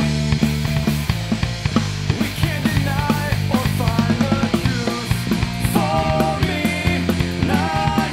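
A rock band playing a song: drum kit beating steadily under electric guitar and bass, with a man singing lead.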